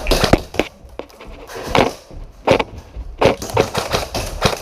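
A string of sharp, irregular knocks and snaps, about eight or nine in the space of four seconds.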